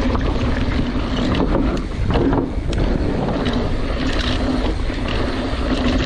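Wind rushing over a riding action camera's microphone, with mountain-bike tyres rolling over a loose, rocky dirt trail. A few short rattles come from the bike jolting over bumps.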